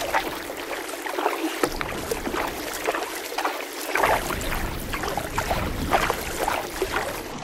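Double-bladed kayak paddle dipping into calm water stroke after stroke, with irregular splashing from the blades.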